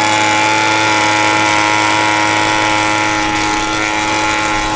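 Small handheld two-stroke gas leaf blower running steadily at a constant speed, blowing air into a campfire.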